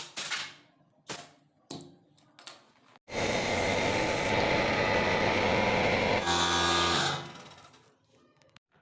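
DeWalt D2002M pancake air compressor: a few sharp clicks, then a loud steady rush of noise that starts abruptly about three seconds in and lasts about three seconds. It then drops to a humming tone that fades away.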